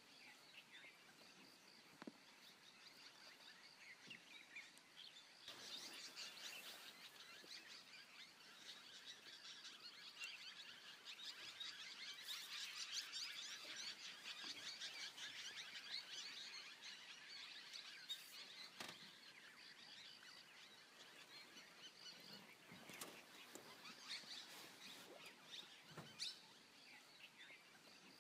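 Faint forest ambience full of small birds chirping and chattering, swelling to its busiest in the middle and thinning out again, with a few scattered clicks.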